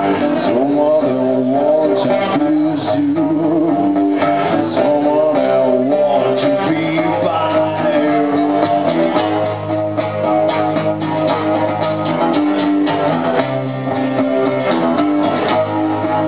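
Two acoustic guitars playing a song together, with a man's voice singing along into a microphone.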